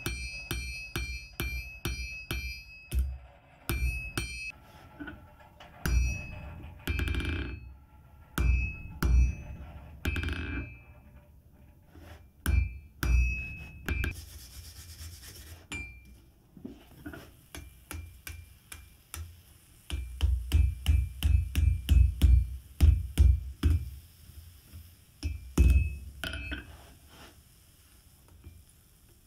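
Hand hammer striking a hot steel bar on an anvil, each blow ringing. The blows come in runs: about four a second at first, then scattered strokes, then a fast, loudest run about two-thirds of the way through. A brief scraping sound comes about halfway.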